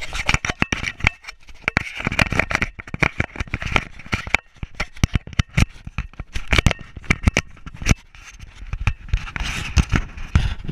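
Scraping, rubbing and irregular clicking right at a GoPro worn in a dog harness mount as a beagle moves about, her fur and the harness rubbing and knocking against the camera housing.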